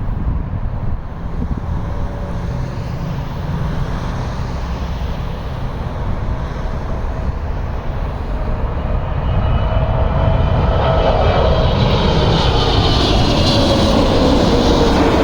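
Jet airliner coming in to land, its engine noise growing louder over the second half, with a whine that falls slowly in pitch as it passes.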